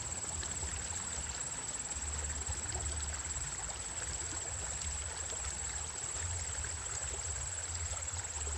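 Steady rush of a small river's flowing water, with a thin, steady high-pitched tone over it.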